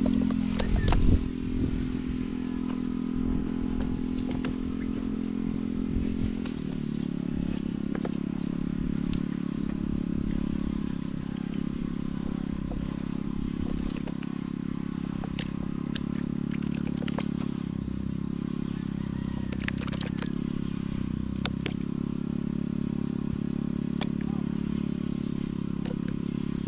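A small engine running steadily, its pitch dropping slightly about six seconds in, with occasional light clicks and clatters.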